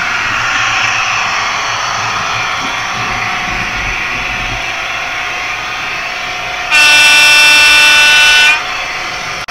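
Steady running noise of O gauge model diesel locomotives on the layout. A little past halfway, a loud diesel horn from a model locomotive's sound unit sounds once for about two seconds and cuts off sharply.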